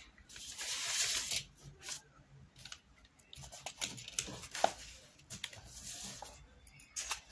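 Paper rustling as notebook pages and a loose sheet are handled and turned, in several short rustles with small clicks.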